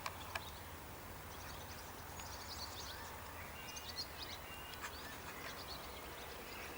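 Small songbirds singing in the reeds and trees: quick high chirps and trills, a few short whistled notes, over a steady low hum, with a few faint clicks.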